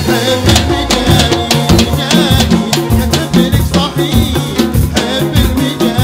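Live Gulf (khaleeji) band music: drum kit and hand percussion keep a steady, driving rhythm under a bass line and an organ/keyboard melody.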